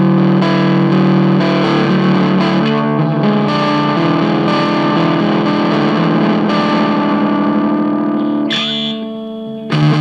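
Electric guitar played through a Stewmac Sun Fuzz pedal fitted with a 3BX81A germanium transistor, fuzz at 3 o'clock and bias, volume and tone at 12: distorted chords ringing out. The sound thins out a little before the end, then a new chord is struck.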